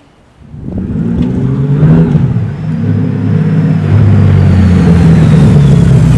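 Honda Valkyrie's 1832 cc flat-six motorcycle engine running, coming up about half a second in, rising quickly to a steady, loud run with a short dip a couple of seconds later.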